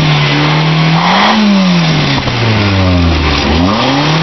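Toyota Corolla engine revved through a soup tin slipped over the exhaust tip. The revs climb to a peak about a second in, fall back over the next two seconds, then rise again near the end.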